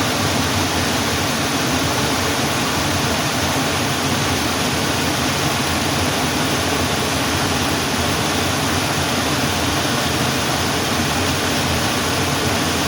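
Waterfall water rushing steadily, a loud, even roar of falling water.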